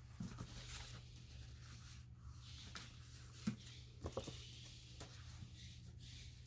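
Faint rustling and a few light taps of paper and card being handled and set down, over a low steady hum.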